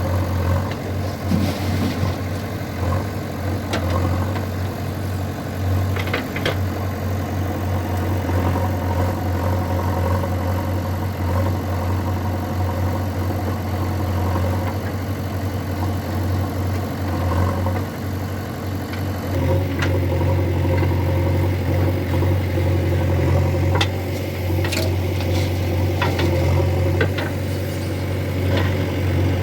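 Diesel engines of a JCB 3DX backhoe loader and a tractor running steadily at a mud-loading job, with a few short knocks and clatters. A higher steady hum joins about two-thirds of the way through.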